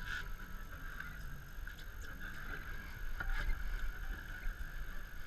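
Boat motor running low and steady, a rumble with a steady hiss over it, as the boat gets under way to follow a hooked tarpon.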